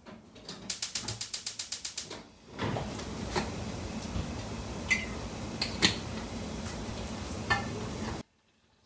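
A quick run of about fifteen ratcheting clicks, then a steady hiss broken by a few sharp clinks, which cuts off suddenly near the end.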